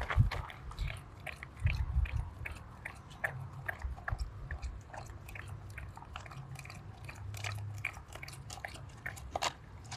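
A dog licking and chewing whipped cream and dog biscuits from a small cup, with irregular crunches, clicks and tongue-slurping.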